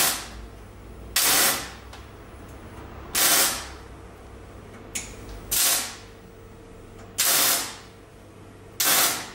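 Grinder disc pressed against the rusty steel head of a hammer clamped in a vise, in six short grinding passes of about half a second each, spaced roughly every one and a half to two seconds, with a steady low hum between them.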